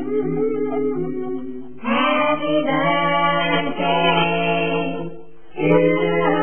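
Music with singing: held sung notes in phrases, a new phrase coming in about two seconds in and another near the end.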